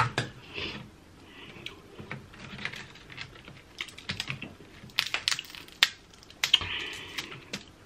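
Snow crab being eaten close to the microphone: irregular sharp cracks and clicks of shell being broken apart, with wet mouth sounds of chewing and sucking the meat out.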